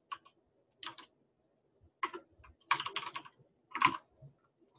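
Computer keyboard typing in about five short bursts of keystrokes with pauses between them.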